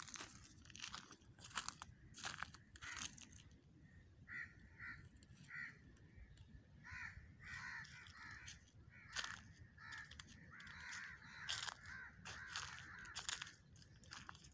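Crows cawing in repeated short calls, more densely near the end, over dry crunching steps through leaf litter.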